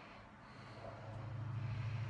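A sleeping man's low, drawn-out nasal hum, growing slowly louder, between sleep-talking phrases.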